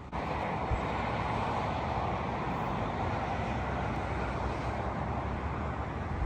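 Steady, even rumble and hiss of distant engine noise, starting abruptly.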